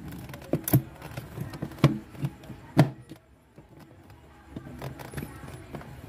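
Hard plastic knocks and clicks as a refrigerator's evaporator fan shroud panel is pushed and slid into place in the freezer compartment. Three sharper knocks come about a second apart in the first three seconds, then only a few faint clicks.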